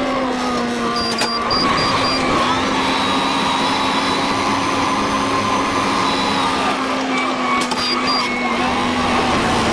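Tractor engine running steadily under load, pulling a Massey Ferguson 1840 small square baler through the hay, with a drone whose pitch wavers a little.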